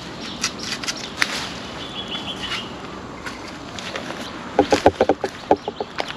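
A chicken clucking in quick runs of short clucks, starting about two-thirds of the way in. Before that there are scattered light clicks and a brief high chirp.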